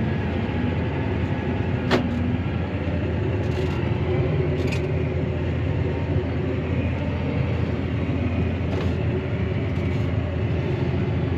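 Claas Arion 650 tractor engine running steadily under load, heard from inside the cab while the tractor drives over a grass silage clamp to compact it. A sharp click sounds about two seconds in.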